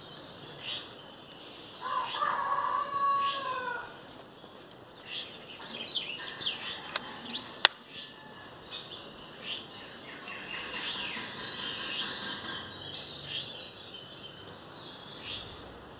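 Small birds chirping on and off, with a rooster crowing once about two seconds in. A single sharp click comes about halfway through.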